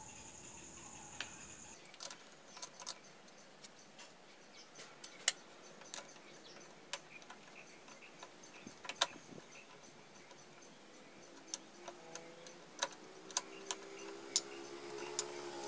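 Sparse, irregular light metal clicks and clinks as steel and friction clutch plates are fitted by hand into a Honda CM125T clutch basket, with a few sharper clicks standing out. A faint low hum builds near the end.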